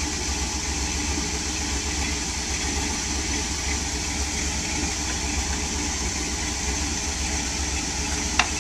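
Lifted Jeep's engine running at low revs, a steady low drone as the Jeep crawls over a boulder. A single sharp knock near the end.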